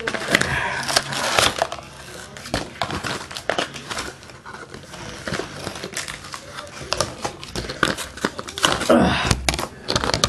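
Packaging of a Pokémon card Double Crisis set crinkling and crunching in a run of irregular crackles and clicks as it is worked open by hand.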